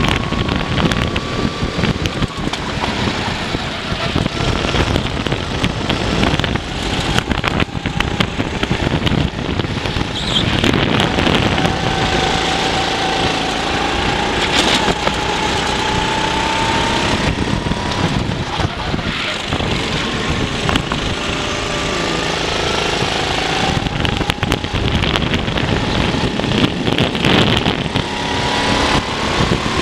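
Racing kart engine heard from its onboard camera, climbing in pitch as it accelerates and falling away as it backs off, with a long climb around the middle and another near the end.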